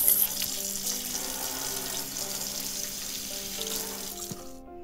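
Kitchen tap running, its stream splashing over a zucchini and into a stainless steel sink while it is rinsed by hand; the water sound fades away near the end. Soft background music with held notes plays underneath.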